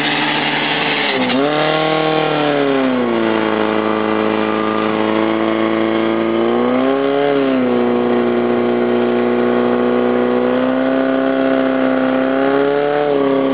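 Portable fire pump's engine running hard at high revs, pumping water out to the hose lines. Its pitch climbs about a second and a half in, drops back, surges again around seven seconds, then holds steady with a last rise near the end as the throttle is worked.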